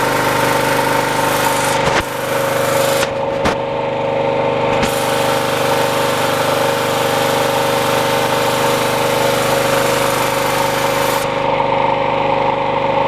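Mellga MG2500CL portable generator's engine running at a steady, constant speed, with a few short clicks in the first five seconds.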